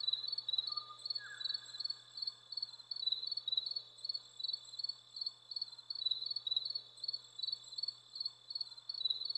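Steady, rhythmic high-pitched chirping, about two or three chirps a second, with a couple of short whistled bird notes about a second in.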